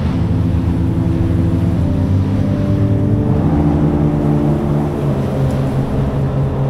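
Yamaha AR250 jet boat under way across choppy water: a steady engine drone with several held tones, over the rush of water and wind.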